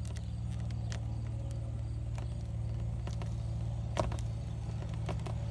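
Small clicks of a ring of rubber hose being joined around a painted PVC pipe by hand, with one sharper click about four seconds in, over a steady low hum.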